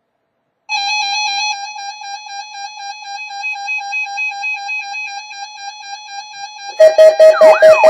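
Electronic alert tones: a steady pitched beep that pulses quickly starts under a second in. Near the end it gives way to a much louder siren sound whose pitch sweeps up and down over a steady tone.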